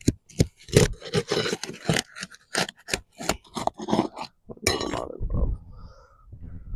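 Quick, irregular scrapes and clinks of work on gritty asphalt roof shingles, dense for about five seconds and then thinning out to a few faint ones.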